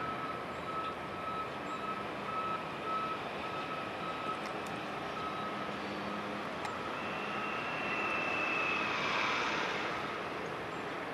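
Steady rushing machinery noise of the large car ferry Sunflower Ivory passing close by. A high, broken beeping sounds in the first few seconds, and a higher whine swells and fades again near the end.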